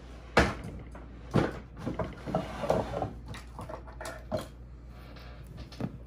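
Tools and objects being handled on a wooden desktop: a few sharp knocks and clatters, with smaller clicks and rustles in between, as scissors are picked up to cut a paracord lanyard.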